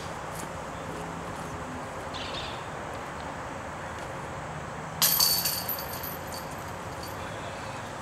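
A putted disc golf disc striking the metal chains of a disc golf basket: a sudden clatter about five seconds in, the chains jangling and ringing out over about a second as the putt goes in.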